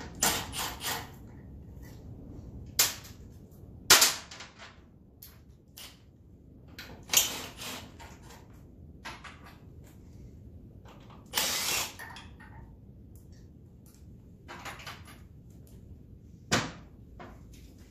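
Intermittent hand-work on a motorcycle: irregular sharp clicks and clacks of tools and metal parts, with a few short harsh bursts from a cordless drill-driver, the longest about two-thirds of the way through.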